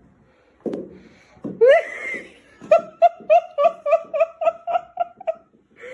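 A person laughing: a short rising vocal sound, then a quick, even run of about ten 'ha' bursts.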